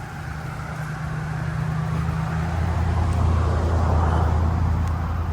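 Motor vehicle traffic: a low engine drone with road noise that swells to a peak about two-thirds of the way through, as a vehicle passes.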